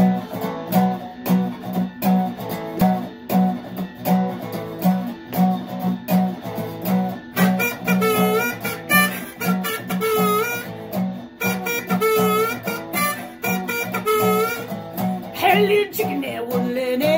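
Acoustic guitar strummed in a steady blues rhythm, with a harmonica joining about seven seconds in and playing bent, wavering notes over it.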